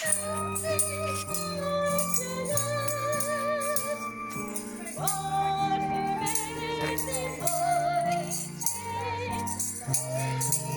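Music: a singing voice with vibrato over sustained low chords, with a shaker or tambourine rattling along in a steady rhythm.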